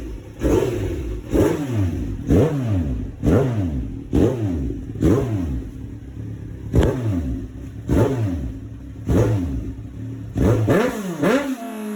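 Engine revved in a series of quick throttle blips, about one a second, each jumping up sharply and then falling back in pitch, a dozen in a row.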